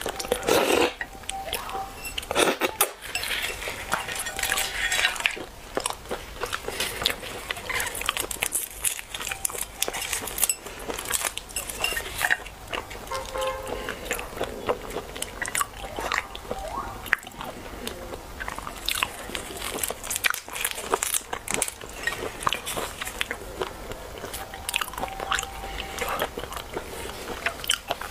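Close-miked peeling and eating of raw red shrimp: shells cracking and crackling as they are pulled apart by hand, with chewing of the flesh, a steady run of sharp clicks and wet crackles.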